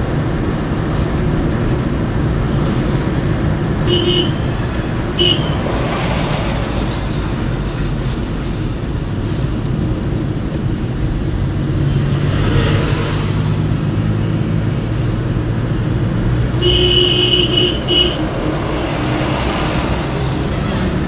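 Steady engine and road noise heard from inside a moving car's cabin in highway traffic. Brief horn beeps sound about four and five seconds in, and a longer horn blast lasting over a second comes near the end.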